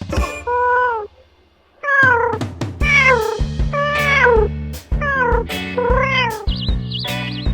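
Cat meowing repeatedly, about six meows that each rise and then fall in pitch, with a short pause after the first. Background music with a steady beat plays underneath.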